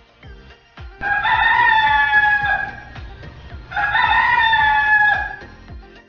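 Rooster crowing twice, each crow long and held, dropping in pitch at its end, with background music underneath.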